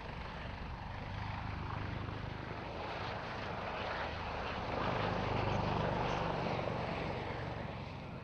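Airbus H145M helicopter flying a display pass, its rotor and twin Turbomeca Arriel 2E turboshaft engines growing louder to a peak about five seconds in, then fading.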